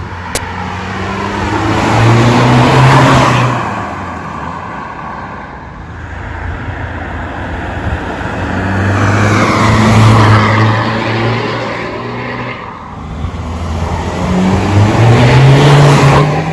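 Tuned 2.0 TDI diesel engine of a Mk2 SEAT Leon, about 300 bhp, accelerating hard past three times, the engine note rising in pitch on each pull and then falling away as the car goes by.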